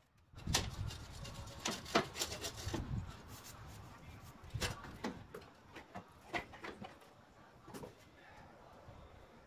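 Chrome bumper being worked loose and pulled off its mounts: a string of irregular metal knocks and scrapes, loudest and thickest in the first three seconds, then a few sparser clunks.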